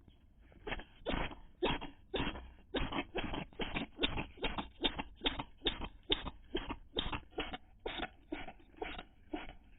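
A cat sneezing over and over in a fit, short sharp sneezes coming about two a second, starting about half a second in.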